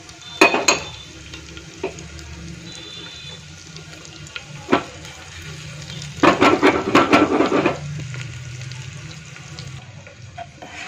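Whole spices (cumin, radhuni, panch phoron and dried red chilli pieces) sizzling in hot oil in a pressure cooker for a tadka, with a spoon stirring and scraping against the pot. A busy burst of crackle and clatter comes about six seconds in and lasts nearly two seconds.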